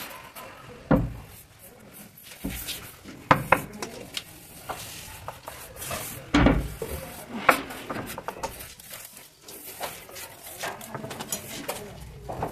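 Wooden window sash being handled and set into a window opening, giving a handful of sharp wooden knocks and clatters.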